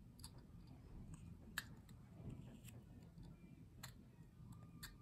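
Whittling knife blade cutting and levering at a wooden block: faint, with about five sharp clicks of the blade in the wood, the loudest about a second and a half in, as a small corner chip is worked out beside the carved nose.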